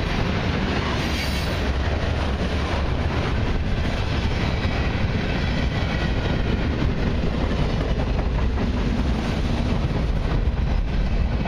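CN mixed freight train's centerbeam flatcars rolling past: steel wheels on rail making a steady, loud noise with a strong low end.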